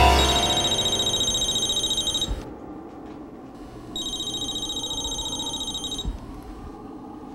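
Telephone bell ringing twice, each ring about two seconds long with a pause of under two seconds between.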